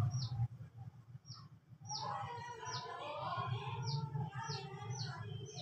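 A small bird chirping repeatedly: short, high, downward-sweeping chirps spaced irregularly, over faint background noise.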